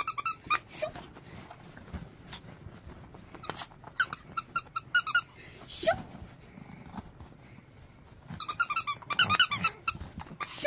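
A squeaker inside a small plush fleece cushion, squeezed over and over to give bursts of rapid high squeaks: a few at the start, a run about four seconds in, and a louder run near the end.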